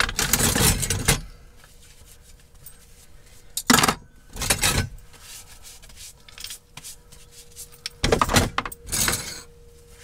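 Metal cutlery and utensils clattering into a plastic cutlery tray in three short bursts as they are wiped and put away, over a faint steady hum.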